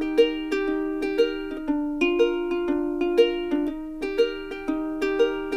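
Background music: a light plucked-string tune with notes at an even pace of about two a second.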